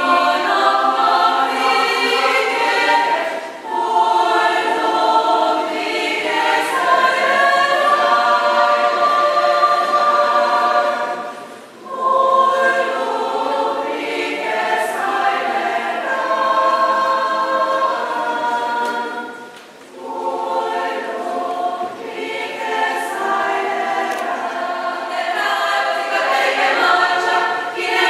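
Women's choir singing held chords in long phrases, with short breaks between phrases about four, twelve and twenty seconds in.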